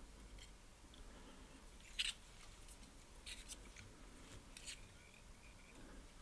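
Faint small clicks and ticks of hands and tools working at a fly-tying vise as a quill body is wound and tied off, the sharpest click about two seconds in.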